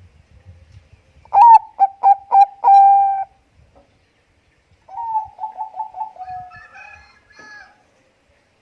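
Zebra dove (Bangkok perkutut) cooing: a loud phrase of quick clipped notes ending in a held coo about a second in, then a quieter, rolling phrase of rapid notes trailing off a few seconds later.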